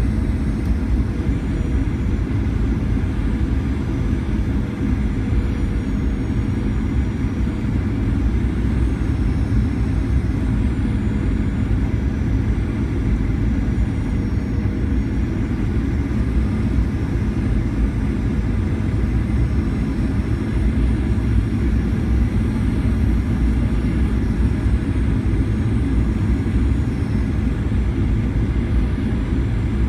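Steady cabin noise of a Boeing 737-900ER on approach, heard from a window seat over the wing. A low rumble of airflow and the CFM56 turbofan engines carries a faint high whine that wavers slightly in pitch.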